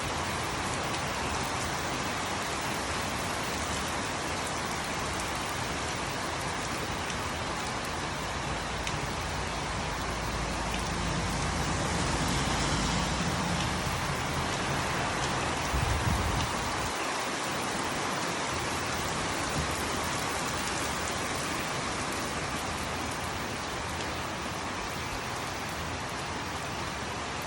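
Steady rain falling and pattering on surfaces. A low rumble builds through the middle and stops suddenly about two thirds of the way in.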